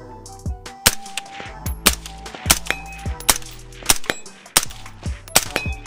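AR-15 rifle with a Dead Air Sandman S suppressor fired about seven times in quick succession, a shot every second or less, over background music with a beat.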